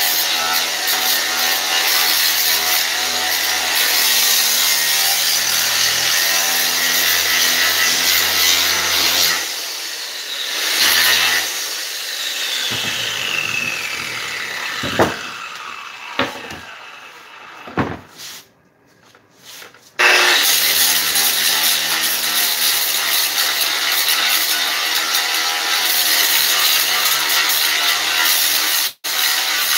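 Angle grinder grinding staples off a boat seat's board, cut off about ten seconds in, its whine falling as the disc spins down. A few knocks follow, then the grinder starts up again about twenty seconds in and grinds to the end.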